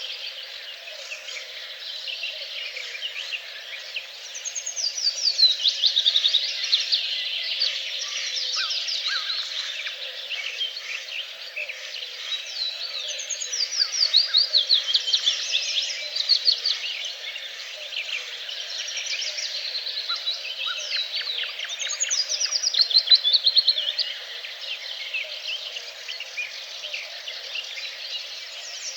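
Several songbirds singing at once in a dense chorus, with rapid falling trilled phrases standing out about five, fourteen and twenty-two seconds in.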